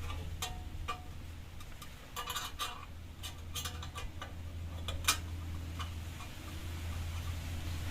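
Irregular light metallic clicks and clinks as hand tools and small metal fittings are worked on the exhaust heat shield bracket, some in quick little runs, with a steady low hum underneath.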